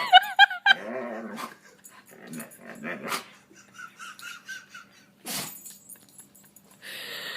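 A dog making strange vocal noises: loud, wavering calls that slide up and down in pitch in the first second, then quieter grumbling whines, with a row of short high whimpers around the middle. There is a brief sharp noise about five seconds in.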